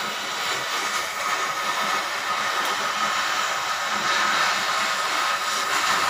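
Gas cutting torch hissing steadily as its flame burns through steel.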